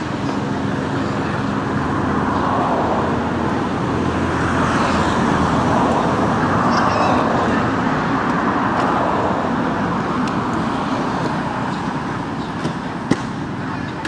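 Steady road-traffic noise that swells through the middle and eases off again, with a single sharp click near the end.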